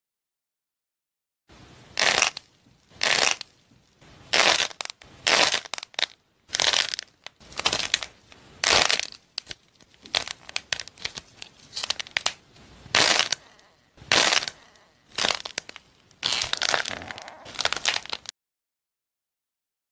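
Hands squeezing and crushing avocado-shaped objects with a hard painted shell and a white crumbly filling, giving a series of crisp cracking and crunching bursts, roughly one a second. The bursts start after a short silence and stop suddenly near the end.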